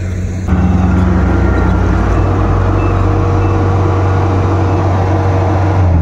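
Kubota combine harvester's diesel engine running steadily at close range, a low even hum with a mechanical rattle over it, growing suddenly louder about half a second in.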